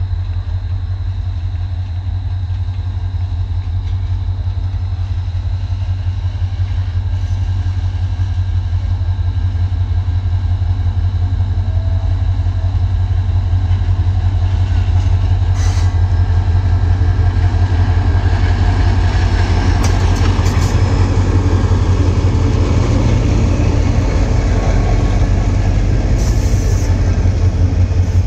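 Diesel-hauled Bangladesh Railway passenger train approaching and passing close by: a steady low engine rumble with rail and wheel noise, growing louder as the coaches come alongside. A few brief sharp clanks about halfway through and near the end.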